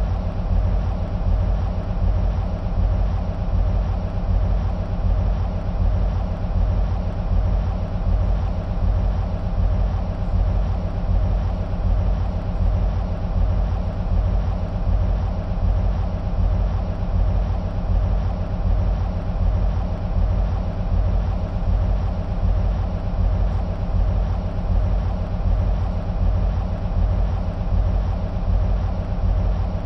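EMD SW1500 switcher locomotive's 12-cylinder two-stroke diesel (EMD 12-645E) idling: a steady, deep rumble with a fast, even throb that does not change.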